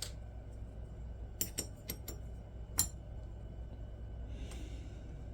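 Small metal knife parts clicking and clinking as they are handled: about five light, ringing clicks in quick succession, the last, near three seconds in, the loudest. A low steady hum lies under them.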